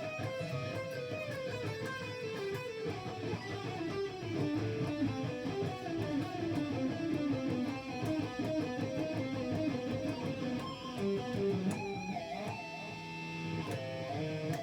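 Guitar playing fast single-note runs in E harmonic minor, the notes stepping down and climbing back up, with a few longer held notes near the end.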